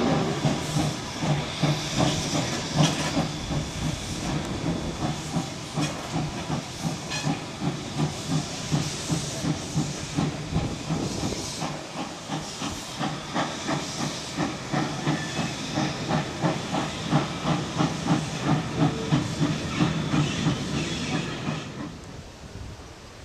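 Iron Horse Central No. 4 steam locomotive working, its exhaust chuffing in a steady, even rhythm of several beats a second over a hiss of steam. The beats fade away near the end.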